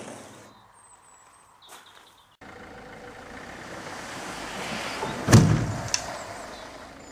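A heavy dive-platform float section sliding out of the back of a van, a rising scraping rush that ends in one loud thud as it drops onto the gravel about five seconds in.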